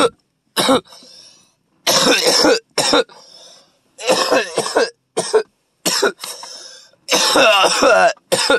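A man coughing hard in a fit of about ten harsh coughs, some single and some in longer strings, with short wheezing breaths between them. This is the cough that follows a big lungful of cannabis smoke.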